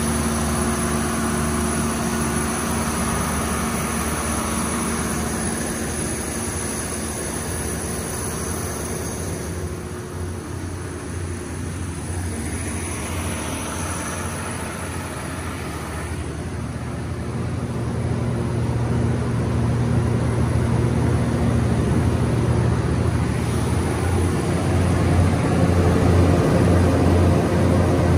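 MTU 12V4000 V12 diesel engine of a Kohler 1500 kW generator set running at steady speed under load on a resistive load bank, a deep even hum with a low drone. It grows louder in the second half.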